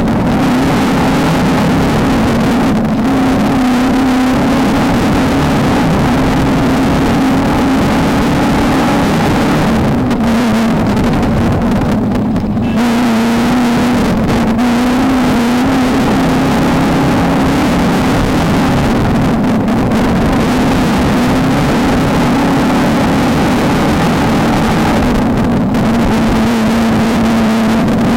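Off-road race car engine running hard and steady under a dense rush of noise, its pitch wavering up and down. The throttle eases off briefly a few times, most markedly about twelve seconds in, before the engine pulls again.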